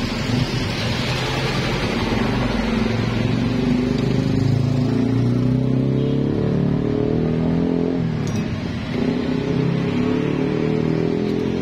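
A motor engine running steadily, its pitch wavering up and down a little.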